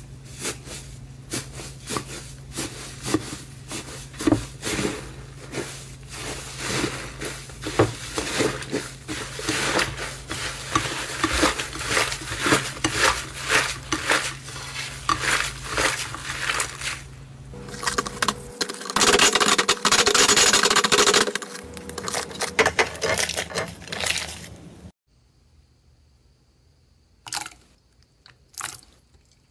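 Slime being squeezed and worked by hand, crackling and popping in many small clicks, with a louder, denser run of crackling about two-thirds of the way through. Near the end it cuts to a quiet background with only a few clicks.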